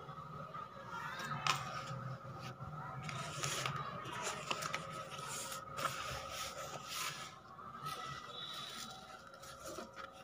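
Fabric rustling and scraping of a sewn cloth backpack being handled and turned over, in irregular brushes.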